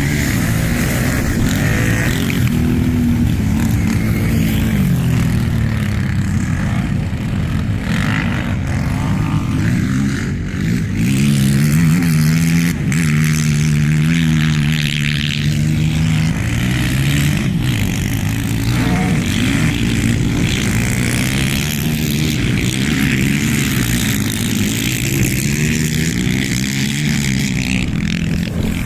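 Racing quad bike (ATV) engines running hard, their pitch climbing and dropping again and again as the riders open and close the throttle.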